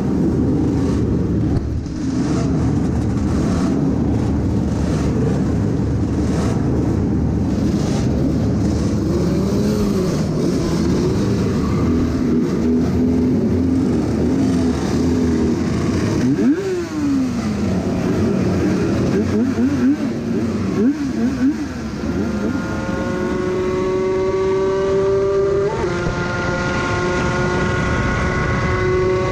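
Yamaha 500cc two-stroke racing motorcycle engine, with other racing bikes around it, being blipped and held on the throttle at a standstill. About halfway through it pulls away, revs rising and falling through the gears, and for the last several seconds it runs flat out at over 200 km/h as a steady high note that slowly climbs, with one gear change, and rushing wind.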